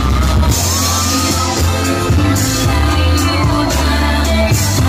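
Loud amplified music with a heavy bass line, and a voice singing into a microphone over it.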